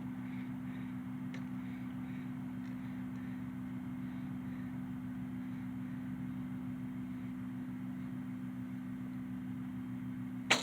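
Steady low hum throughout, then near the end a single sharp snap of the Bear Whitetail bow's string as an arrow is loosed.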